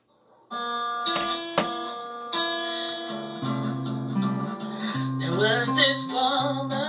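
Steel-string acoustic guitar strummed, starting about half a second in, its chords left ringing while the low notes change from chord to chord.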